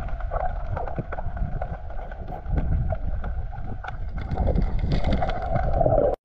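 Muffled underwater rumble and sloshing picked up by a submerged camera, with many scattered clicks and crackles; it grows louder about two and a half seconds in.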